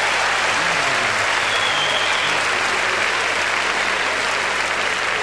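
Studio audience applauding steadily, a dense even clapping that fades a little toward the end, in response to a comedian's joke.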